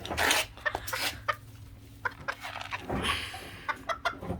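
Chickens clucking in short, soft calls. Two louder rustling noises come, one right at the start and one about three seconds in.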